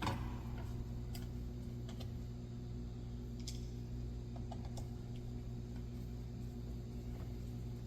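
Scattered light clicks and taps of a Phillips screwdriver and screws working on a metal license plate on a bumper, over a steady low hum.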